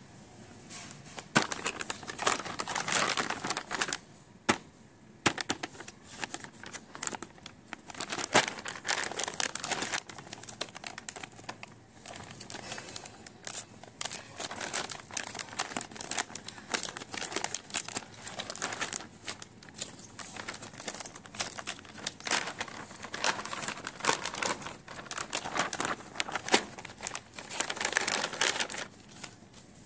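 Thin plastic packaging of a stationery kit crinkling as it is handled and torn open by hand along a perforated seam, in irregular bursts with sharp crackles.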